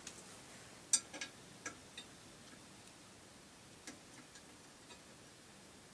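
Scattered light clicks and taps of hand work loosening a tight part on a Rock-Ola 443 jukebox, with a sharper click about a second in and a few fainter ones after.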